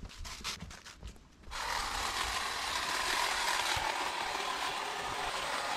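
A cordless hedge trimmer runs steadily as it cuts through a shrub, its motor and reciprocating blades making an even, buzzing whine. It comes in abruptly about a second and a half in, after a moment of faint rustling and clicks.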